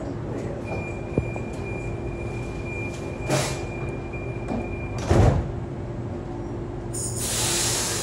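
Double-deck electric suburban train's door-closing warning: a steady high tone sounds for about four seconds while the sliding doors close, ending with a loud thump as they shut. A hiss of air rises near the end, over the steady hum of the train's equipment.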